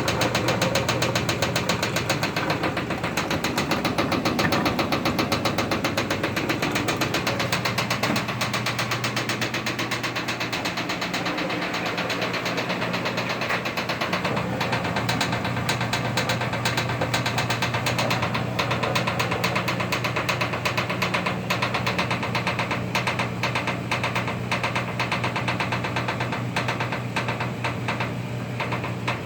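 Whirlpool washing machine running with a steady low hum and a rapid, even knocking that goes on throughout.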